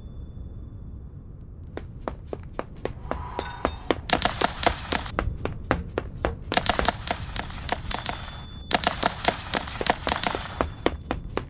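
Rapid gunfire: volleys of sharp shot-like cracks, about five a second, starting a couple of seconds in and breaking off briefly about three-quarters of the way through.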